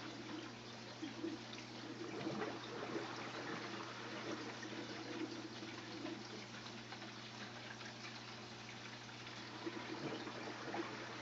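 Water trickling steadily in a home aquarium, the splash of circulating tank water, over a constant low hum.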